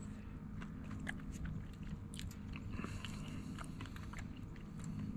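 A person chewing an oyster close to the microphone: soft wet mouth clicks and smacks scattered through.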